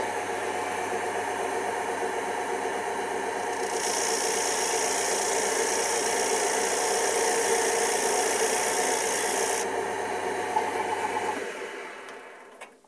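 Wood lathe motor running steadily while a hand file is held against the spinning wooden plug to take it down to size, giving a loud hiss for about six seconds in the middle. Near the end the lathe is switched off and spins down to quiet.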